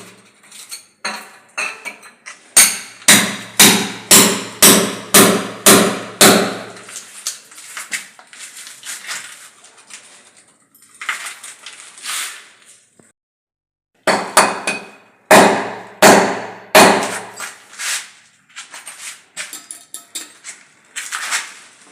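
Hammer blows on a galvanised iron pipe being driven into a drilled hole in a wall. They come in runs of sharp strikes about two a second, with lighter taps between the runs.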